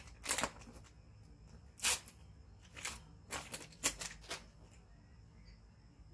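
Crinkling of a plastic package being handled: about six short crackles, the loudest about two seconds in and just before four seconds.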